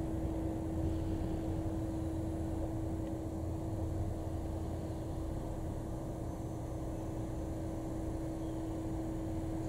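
JR Shikoku 8000 series electric train standing at the platform, its onboard equipment giving a steady, unchanging hum over a low rumble.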